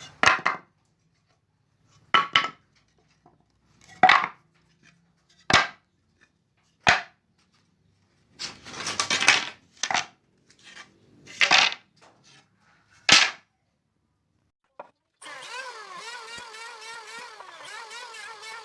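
Pieces of wood knocking sharply against each other or against a surface, one clack every second or two. About fifteen seconds in, a small power tool starts and runs with a steady, wavering whine.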